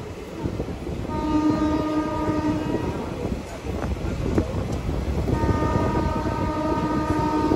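Locomotive horn sounding two long blasts, each about two seconds, over the rumble and clatter of a passenger train of old ICF coaches running on.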